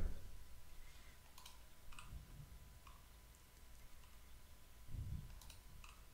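Faint computer mouse clicks, a handful of single clicks spread unevenly across a few seconds, with a soft low thump about five seconds in.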